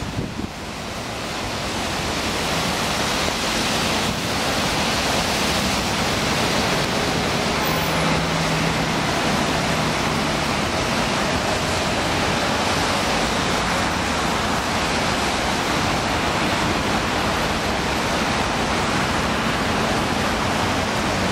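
Steady rushing noise of traffic on a wet road, mixed with wind on the microphone. It builds over the first couple of seconds, and a faint low hum sits in it briefly about eight seconds in.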